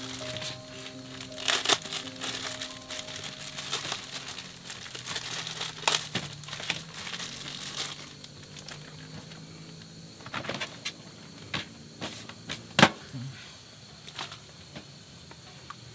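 Plastic food packet crinkling and crackling as it is handled and opened by hand, followed by a few separate sharp clicks and taps. Soft background music plays underneath.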